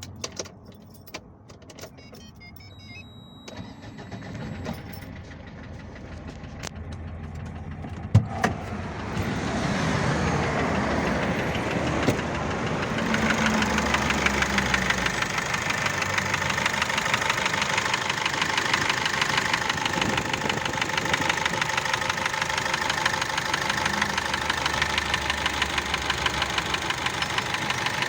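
Cummins ISF 2.8 four-cylinder diesel engine in a GAZelle Business starting about eight seconds in, after a sharp click, then running with a regular rhythmic knock. The knock appeared after the engine rapidly lost its oil through a failed oil filter seal.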